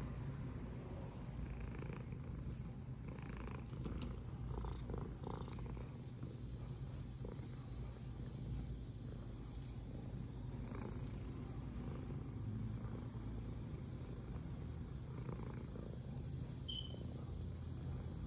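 Domestic cat purring steadily while being stroked, close to the microphone.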